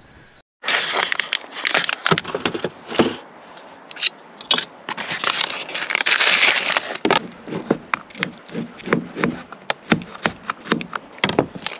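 A dry salami's wrapper being handled and pulled open, then a kitchen knife slicing the salami on a plastic cutting board, each stroke a short knock on the board, about three a second near the end.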